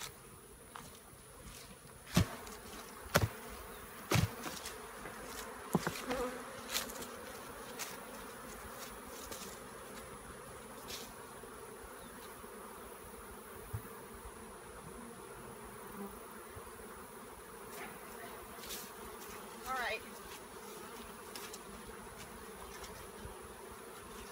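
Swarm of honeybees buzzing in a steady hum around a hive, the bees stirred up after being shaken out of a nuc box into a new hive. Four sharp knocks within the first six seconds, from handling the emptied plastic nuc box.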